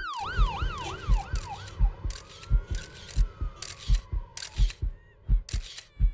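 Emergency-vehicle siren yelping in quick up-and-down sweeps for about two seconds, then wailing in one slow rise and fall. Under it runs a regular beat of a thud with a sharp click, about every two-thirds of a second.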